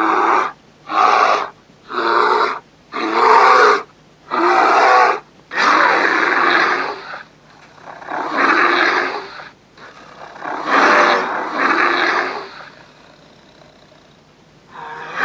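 Quatran creature roar and growl sound effect: a run of about nine short roars and growls, the first five quick and evenly spaced about a second apart, the later ones longer and drawn out, then a pause near the end.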